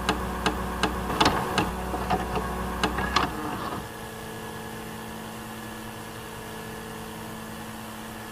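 VCR tape mechanism: a low motor whir with a run of sharp clicks, about three a second. After about three and a half seconds the clicks and whir stop, leaving a quieter steady electrical hum with a faint whine as the tape plays.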